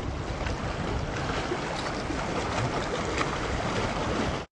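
Small waves washing and splashing against shoreline rocks, with a steady low rumble underneath.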